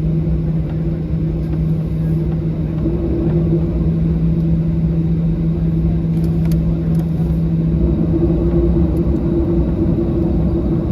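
Inside the cabin of a Boeing 737-800 before takeoff: the jet engines' steady droning hum over a heavy low rumble.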